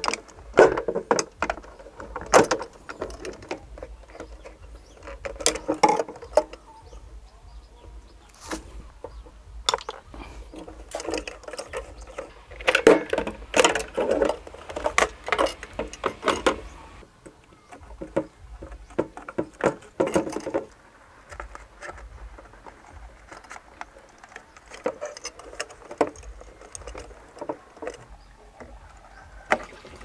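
Handling noise from electrical work: scattered sharp clicks, taps and clattery scrapes of a screwdriver on the terminal screws of a porcelain knife-switch cut-out and of the plastic enclosure and its parts being handled. The clicking comes in busy clusters and thins out in the last third.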